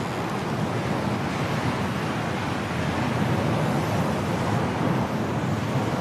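Strong wind of a snowstorm blowing steadily, a low, even rushing with no let-up.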